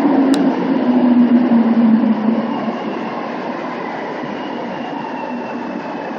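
Metro train running through an underground station, a steady rumble with a motor whine that falls in pitch over the first couple of seconds as it slows, then settles quieter. A brief sharp click comes just after the start.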